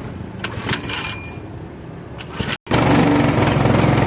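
Coconut-milk pressing machine's motor running loudly with a fast, even pulse, starting abruptly about two and a half seconds in after a moment of silence; before that, low rumble and a few clatters of handling.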